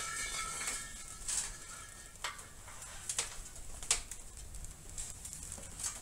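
Faint outdoor background hiss broken by a few short, sharp chirps or clicks, about four of them spread over several seconds. A fading music tail is heard in the first second.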